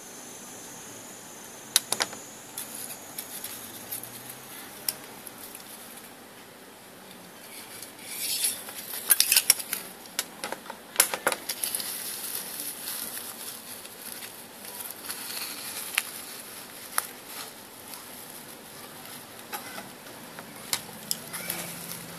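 Small metal clicks, clinks and scraping as tin-can engine parts and a thin metal rod are handled and worked with a screwdriver, with a busier run of clinks and scrapes about 8 to 12 seconds in.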